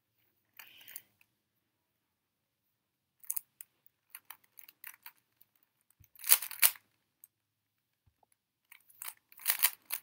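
A 3x3 speedcube turned rapidly by hand: its plastic layers clack in quick flurries of clicks, loudest about six seconds in.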